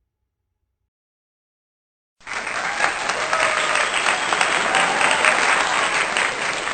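About two seconds of silence, then a crowd applauding: dense, steady clapping.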